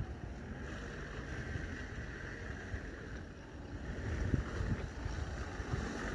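Wind buffeting the microphone in a steady low rumble, with an SUV slowly approaching along a muddy track; the rumble grows louder over the last couple of seconds as the car draws near.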